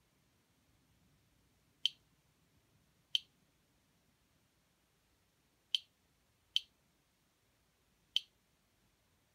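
Geiger counter module (RadiationD-v1.1) clicking through its on-board buzzer: five sharp, high clicks at irregular intervals. Each click is a particle detected by its J305 Geiger-Müller tube.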